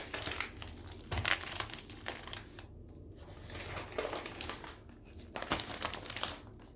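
Crinkling and rustling of packaging being handled, coming in irregular bursts with short pauses.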